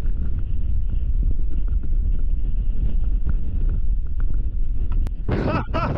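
Strong hurricane wind buffeting the microphone: a steady low rumble, with a louder gust near the end.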